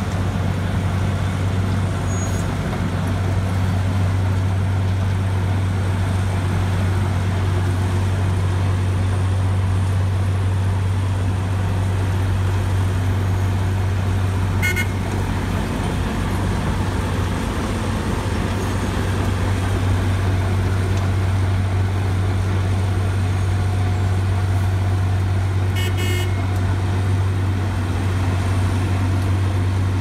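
Cold milling machine (asphalt road planer) running steadily, its diesel engine droning under load while it mills the pavement and conveys the millings into a dump truck. Short high-pitched beeps sound twice, about halfway through and near the end.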